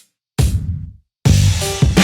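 Background music with a drum beat: one hit, a short break in the music, then the full beat and a sustained melody come back in just past the middle.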